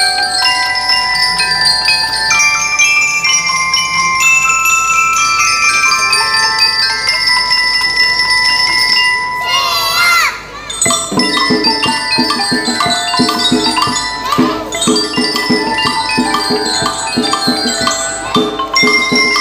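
A children's marching band's mallet percussion section, with xylophones, marimba and glockenspiel-like bells, playing a ringing melody. About halfway through there is a rising sweep, then a quicker rhythmic pattern with lower repeated notes takes over.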